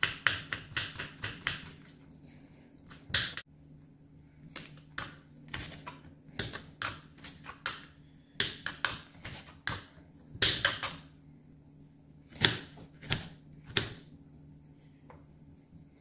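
Kitchen knife chopping garlic cloves, then green chillies, on a wooden cutting board: runs of quick taps, several strokes a second, broken by short pauses.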